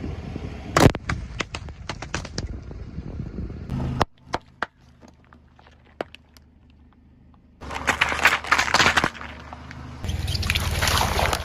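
Objects cracking and crunching as a car tyre rolls over and crushes them: a quick run of sharp cracks, a second burst of crackling later on, then a steady rumble of the car rolling near the end.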